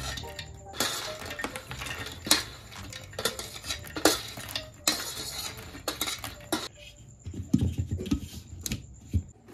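Kitchen utensils clinking and clattering, a string of sharp separate knocks, as the fried dry fruits are handled for grinding, followed by a few duller low thuds near the end.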